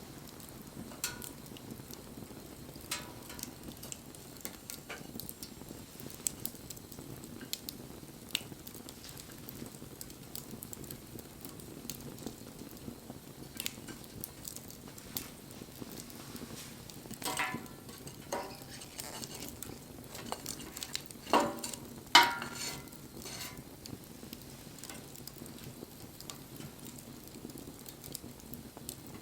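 Wood fire burning: a steady low hiss under scattered sharp crackles and pops, with two louder bursts of crackling about 17 and 22 seconds in.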